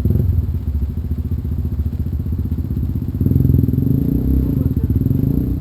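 Dirt bike engine running on a trail ride, with the throttle opened a little more about three seconds in.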